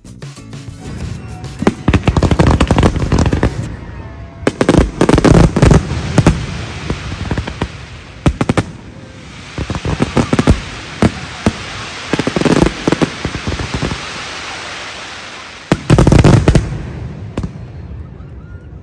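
Aerial fireworks display: clusters of loud bangs from shells bursting overhead, with a long stretch of crackling in the middle and a last heavy burst near the end.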